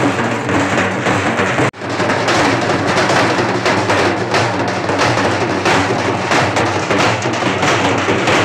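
Halgi frame drums beaten fast and loudly with sticks in a dense, steady rhythm. The sound drops out for a moment a little under two seconds in.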